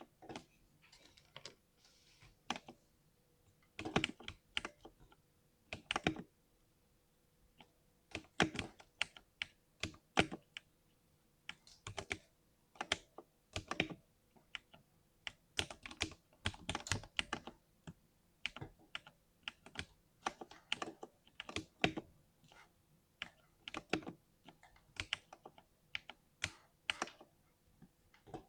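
Typing on a 60% mechanical keyboard tuned for a deep 'thock': irregular runs of key strokes with short pauses between them.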